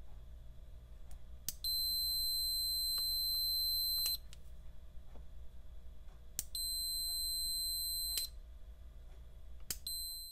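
Fluke multimeter's continuity beeper giving a steady high beep each time a small toggle switch is flipped closed, with a click from the switch as each beep starts and stops. There are two long beeps, and a third starts near the end; each beep marks the switch contacts closing the circuit.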